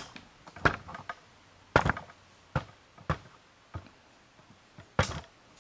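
Handling knocks and clicks from an air rifle and its removed barrel shroud: about seven short, sharp taps spread over a few seconds, the loudest about two seconds in and near the end.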